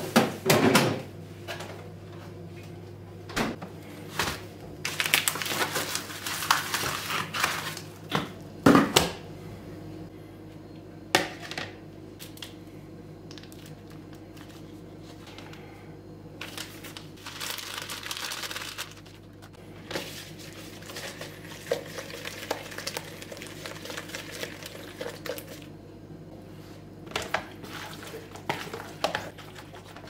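Kitchen food-preparation sounds: scattered knocks and clatter of plastic containers and a plastic bowl, with packaging crinkling, and near the end raw chicken being worked by hand in a mayonnaise-and-seasoning marinade. A steady low hum runs underneath.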